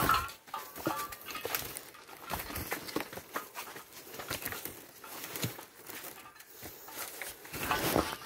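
Footsteps scuffing over loose rocks and dead leaves on a forest trail: irregular soft knocks and rustles.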